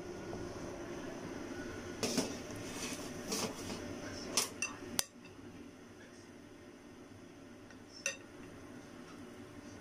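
Kitchenware clinking and knocking several times, with the sharpest clinks about four and a half and five seconds in and one more near eight seconds, over a steady low hiss.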